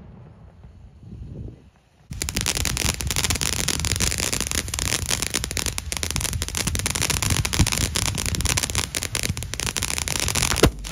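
Fireworks: the tail of a shell burst fades away, then dense, steady crackling with many sharp pops from fireworks going off on the ground, and one sharp bang near the end.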